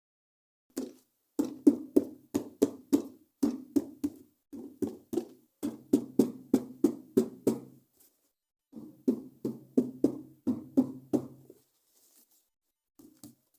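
Runs of sharp clacks, about three or four a second, in three bursts with short pauses, with a low hum under some of them.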